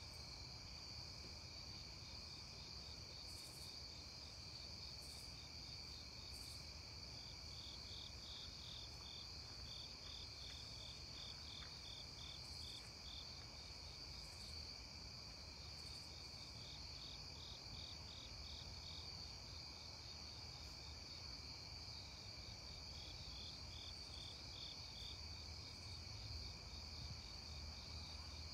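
Faint evening chorus of crickets: a steady high trill with trains of pulsed chirps running beneath it.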